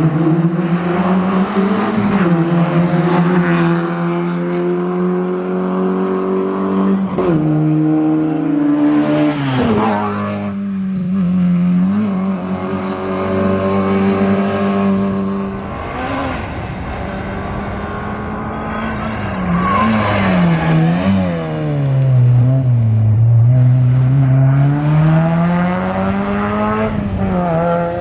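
Peugeot 205 rally car's four-cylinder engine at full effort, revs rising and falling with gear changes. The revs drop sharply about ten seconds in, then come a few quick throttle blips about two-thirds of the way through, and the revs climb steadily again near the end.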